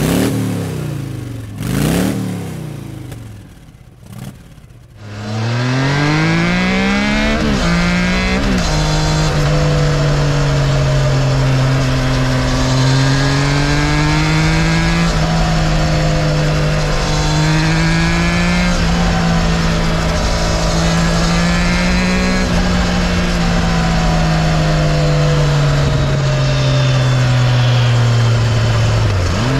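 Triumph Tiger 660's three-cylinder engine on its standard exhaust. About five seconds in it accelerates hard, the note rising steeply to a gear change, then it cruises at steady speed with the pitch rising and falling gently and briefly dropping near the end.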